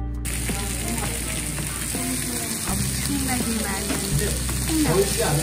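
Slices of pork belly sizzling on a hot round barbecue griddle: a steady frying hiss that starts abruptly just after the beginning.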